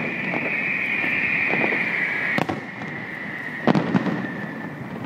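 Aerial fireworks going off with sharp bangs, the sharpest about two and a half seconds in and a close pair near four seconds, with fainter ones between. Under them runs a steady high-pitched hiss that drops in level about two and a half seconds in.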